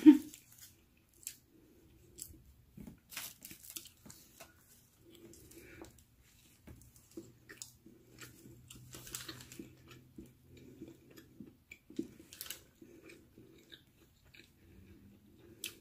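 Close-up chewing and biting of a chicken breakfast sandwich: irregular wet mouth clicks and soft crunches.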